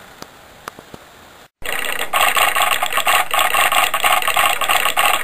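Soft, steady hiss of rain with a few sharp drip clicks. About a second and a half in it cuts off, and a much louder, steady, rapid rattling noise like a running machine takes over.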